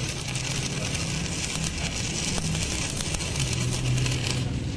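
Stick (arc) welding: the electrode's arc crackling and sizzling steadily with a shower of fine pops, over a low steady hum.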